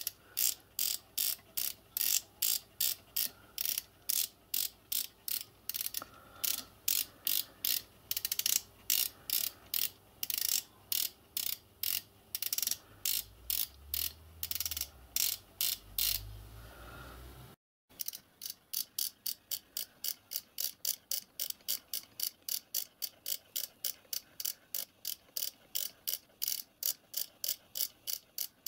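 A miniature steam locomotive's mechanical lubricator being worked by hand on the bench, its ratchet drive clicking steadily about twice a second as it pumps oil through to the outlets to test it. After a short break past the middle, the clicking resumes a little faster.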